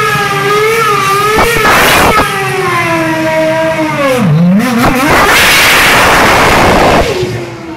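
BMW Sauber Formula One car's engine revving hard while the car spins donuts with its rear wheels spinning. The pitch wavers up and down, dips sharply about four seconds in and climbs again, and the sound drops away near the end.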